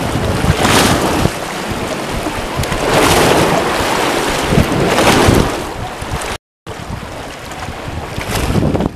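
Wind noise on the microphone over choppy lake water, the waves splashing and lapping; the sound swells and ebbs and cuts out completely for a moment about two-thirds of the way through.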